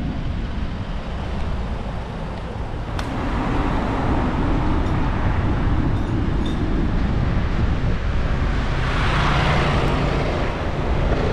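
City street traffic heard from a moving bicycle: cars and motor scooters running past, with a steady low rumble of wind on the microphone. The traffic swells louder about nine seconds in.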